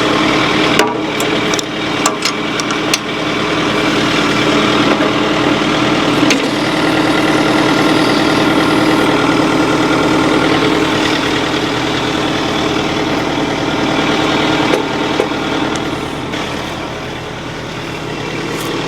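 Tractor engine running steadily, with a few sharp metallic clicks and knocks in the first few seconds.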